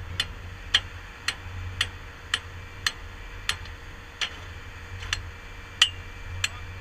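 A tracked skid steer's engine running low and steady under the hydraulic drive head, with sharp metallic clicks at an even pace, about one every half to two-thirds of a second, as the helical ground pile is turned into the soil.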